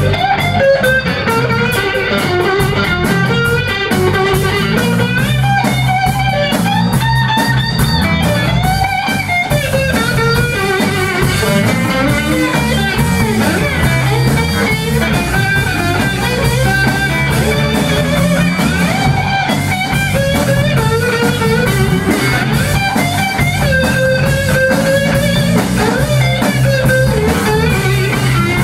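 Blues band playing an instrumental passage: electric guitars through amplifiers over bass and drums, with cymbal ticks keeping time.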